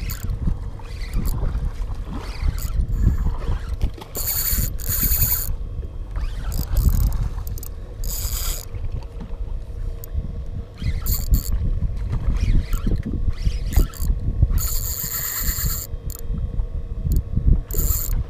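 Spinning reel whirring in several short bursts of about a second each, with scattered mechanical clicks, over a steady low rumble of wind and water on the microphone.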